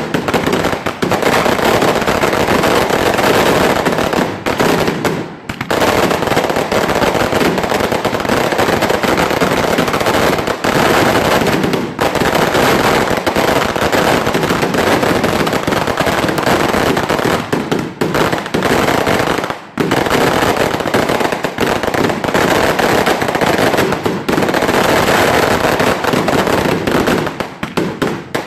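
Daytime aerial fireworks barrage: many small salutes bursting overhead in a loud, rapid, continuous string of bangs, with brief lulls about five and twenty seconds in.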